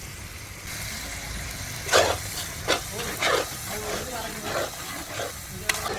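Food frying in a cooking pot with a steady sizzling hiss, and a few sharp knocks of stirring against the pot, the loudest about two seconds in.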